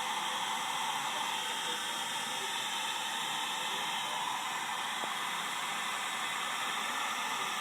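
Heat gun blowing a steady hiss of hot air, shrinking a heat-shrink repair sleeve down onto a frayed battle rope.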